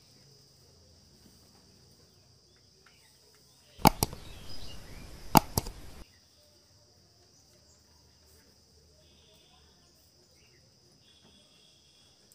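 A subscribe-button sound effect about four seconds in: a whoosh with two pairs of sharp clicks, lasting about two seconds and cutting off suddenly. Under it, a faint steady high-pitched hum.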